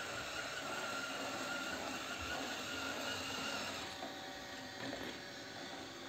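360 S9 robot vacuum running while it mops a laminate floor: a steady motor and fan hum with a faint whine that fades about four seconds in.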